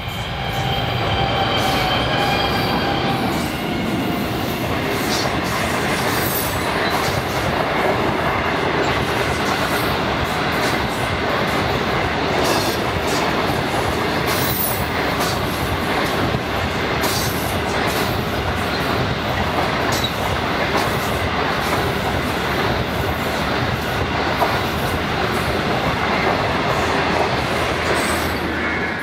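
A train rolling past close by, its wheels clicking over rail joints with a steady heavy rumble and some wheel squeal. A fading tone is heard over the first few seconds.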